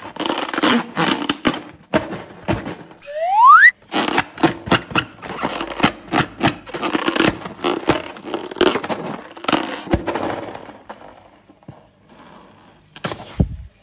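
Slime being squeezed and worked by hand: a dense run of crackling clicks. About three seconds in comes one short rising squeal, the loudest sound. The crackling thins out after about eleven seconds, with a last brief burst near the end.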